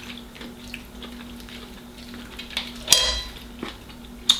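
Small clicks and clinks of dishes and cutlery as food is handled and eaten, with a sharper clink about three seconds in and another near the end, over a faint steady hum.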